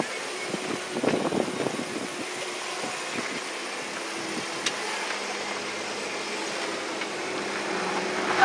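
Jeep engine running at low speed as it crawls over dirt and slickrock, with tyre and road noise and a few knocks and rattles from bumps about a second in.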